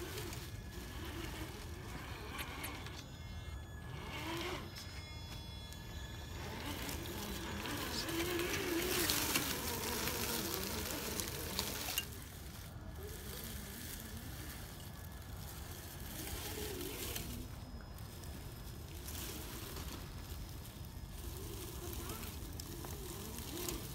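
Scale RC crawler driving over dry fallen leaves and rock: crackling leaf rustle that builds in the middle and stops suddenly about halfway, over a steady low wind rumble, with faint voices.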